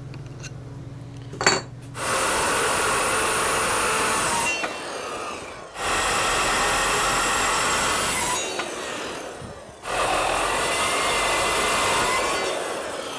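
Metal-cutting circular saw cutting through square steel tubing in three runs of two to three seconds each, its motor winding down with a falling whine between runs. A sharp click comes just before the first cut.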